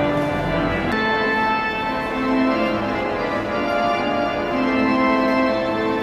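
The Kelvingrove pipe organ, built by T. C. Lewis in 1901, playing held chords that change every second or so. Its deep bass notes drop out about a second in, leaving the higher voices sounding.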